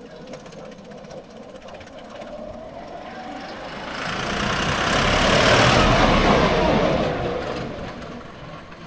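Diesel tractor engine running as the tractor drives past, swelling to its loudest about five to seven seconds in, then fading away.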